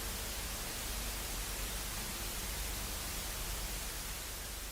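Steady hiss of static-like noise with a deep rumbling low end, beginning to fade near the end.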